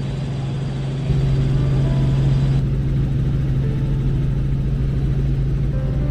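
Robinson R44 helicopter in steady cruise, its piston engine and rotors making a deep, constant hum with overtones, heard inside the cabin. It gets a little louder about a second in.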